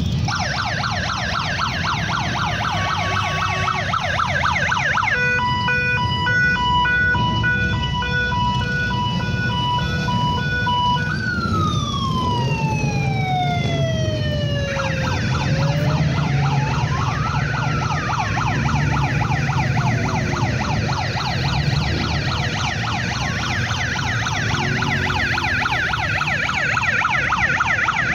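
Electronic siren switching between modes: a fast yelp, then a steady pulsed horn-like tone for several seconds, then a slow wail gliding down, up and down again, and back to the fast yelp. Motorcycle engines rumble low underneath throughout.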